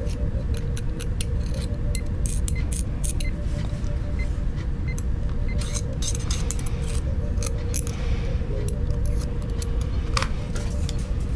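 Scalpel blade scraping and shaving the rough edges off a small prop part: a run of short, light scratches and clicks, with a louder tap about ten seconds in, over a steady low hum.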